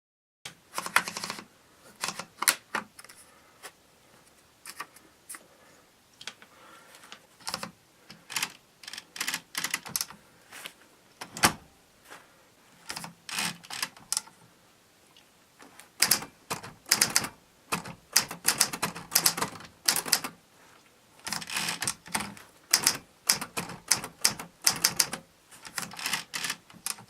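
Keys of a 1940s Remington Rand manual typewriter being typed, sharp clacks in quick bursts with short pauses between.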